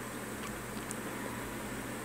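Faint steady hiss with a low electrical hum underneath: the recording's background room tone, with no other sound.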